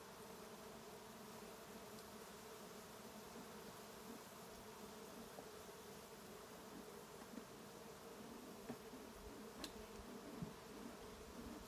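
Faint, steady hum of honey bees buzzing around a colony in a tree as it is smoked to drive the bees out, with a couple of light clicks near the end.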